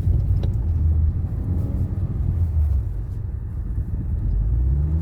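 Car driving along a road: a steady low rumble of engine and tyres, with the engine note rising a little near the end.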